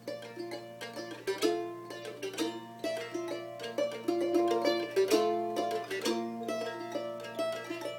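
Voight-built mandolin played solo, with a flatpicked melody of quick single notes and chords ringing between the strokes.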